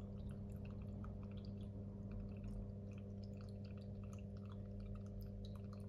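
Small indoor water fountain running: a steady low pump hum with faint trickling and dripping water.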